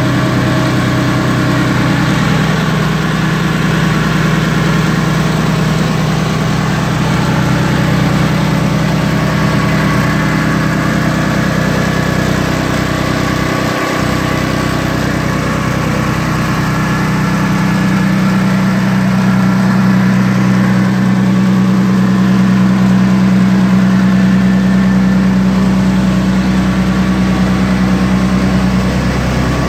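Honda single-cylinder gasoline engine driving a Comet pump on a soft wash skid, running steadily at idle. Its note shifts slightly a little past halfway.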